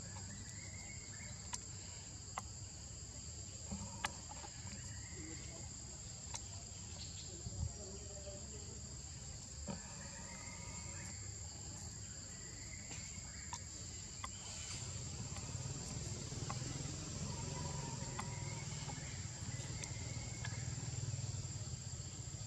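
Steady high-pitched insect drone, with short arching calls every few seconds and scattered sharp clicks. A low rumble grows louder about fifteen seconds in.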